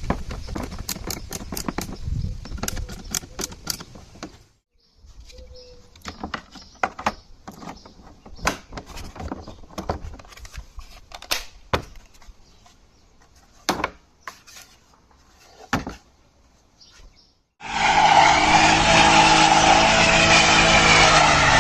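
Scattered plastic clicks and metal taps as the steering column trim cover is fitted and bolted on. About 18 s in, the Dodge Challenger's horn sounds loudly and steadily for about four seconds, the usual check that the horn circuit works through a newly fitted clock spring.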